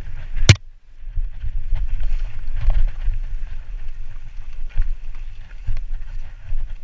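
Mountain bike rolling fast down a rough dirt singletrack, heard from a helmet-mounted camera: a steady low rumble with scattered rattles and clicks from the tyres and bike. One sharp crack about half a second in is followed by a brief moment of quiet.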